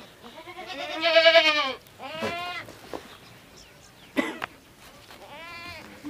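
Goats bleating three times. The first bleat is the loudest and longest, with a quavering pitch, and the next two are shorter. A brief sharp noise comes about four seconds in.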